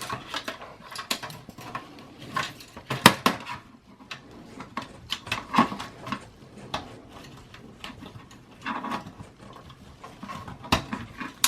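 Irregular clicks, taps and clattering of hard computer parts being handled as the front USB and audio port assembly is worked out of a desktop PC case, with one louder knock about three seconds in.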